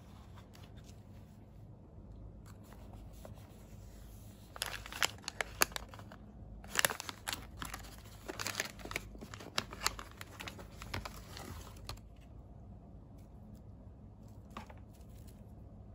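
Paper and clear plastic flower wrapping crinkling and crackling as a small bouquet is unwrapped by hand, in a dense run of sharp crackles lasting several seconds. There are softer handling rustles before and after.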